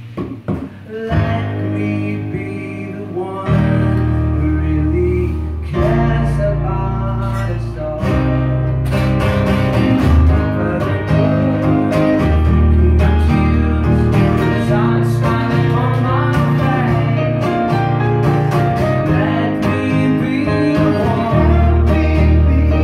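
Live acoustic pop music: a strummed acoustic guitar with a keyboard playing chords and long held bass notes. There is a short choppy break about half a second in before the full accompaniment settles in.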